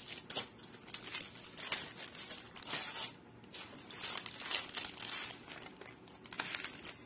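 Aluminium foil and baking paper crinkling in short, repeated crackles as hands lift baked sausage buns off a foil-lined baking tray and handle the foil.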